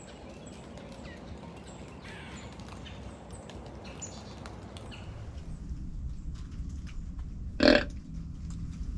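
A deer grunt call blown once near the end: a short, deep, burp-like grunt imitating a buck, meant to draw a deer in. Before it, only faint rustles and small ticks in the woods.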